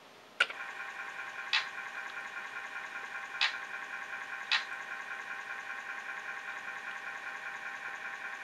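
Commodore floppy disk drive loading a program from disk: a click as it starts, then the drive motor's steady whine, with a few louder clicks from the read head stepping in the first half.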